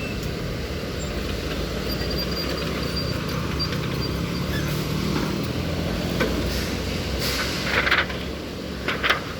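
Road-marking machine's engine running steadily. Short hissing bursts come near the end.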